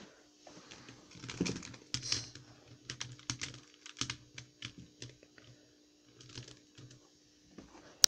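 Plastic puzzle cubes clicking and clattering as they are picked up and moved about on a desk: a string of irregular small clicks and knocks, with a sharper knock at the end.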